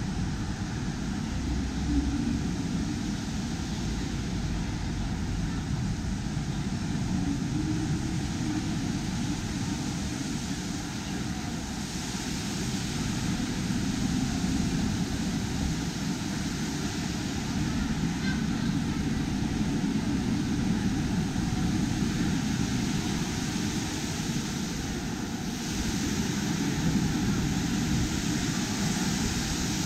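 Steady ambient din of a shopping mall: a continuous low rumble with a hiss over it and no single voice standing out.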